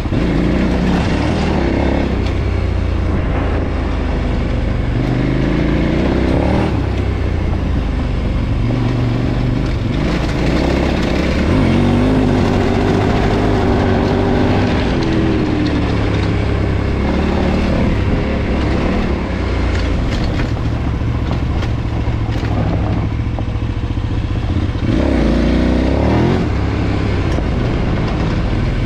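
KTM 990's 999 cc LC8 V-twin through its stock exhaust, running under way. The engine note rises and falls with the throttle, climbing in pitch several times, around 6, 12–15 and 26 seconds in.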